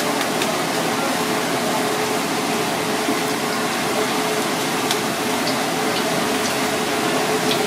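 Hot oil sizzling steadily in a cast-iron wok as fish deep-fries, with a few small pops scattered through it.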